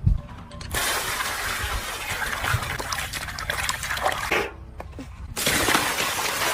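Chicken frying in hot oil, sizzling and crackling, in two stretches that start and stop abruptly: the sizzle begins under a second in, cuts off a little after four seconds, and comes back about a second later.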